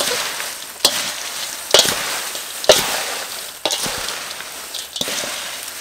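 A wooden spoon and hands tossing a large steel bowl of crisp fried grasshoppers with chilies: a dry, crackly rustle, broken by a sharp knock of the spoon against the bowl about once a second, five in all.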